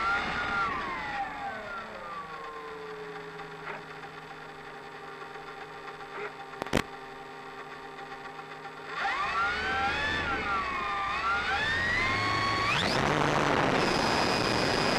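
Durafly Tundra RC plane's brushless electric motor and propeller whining. It is throttled down to a low steady hum in the first couple of seconds, throttled up again with a wavering pitch about two-thirds of the way in, and brought to full power near the end, where a loud rushing noise builds. There is one sharp click about halfway through.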